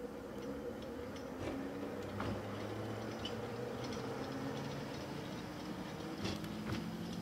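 Open-top double-deck electric tram pulling away and running along the rails: a steady motor hum with a few sharp clicks from the wheels on the track.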